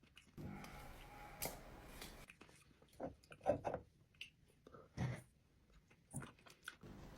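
Irregular soft knocks, clicks and crunches, about half a dozen louder ones spread out with quieter ticks between.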